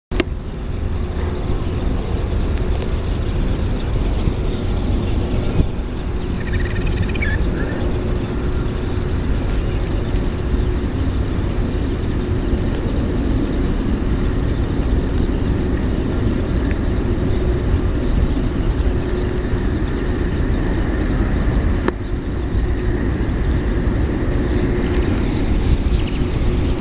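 Steady low rumble with a constant droning hum, like distant engines or machinery, with a brief high chirping call about seven seconds in.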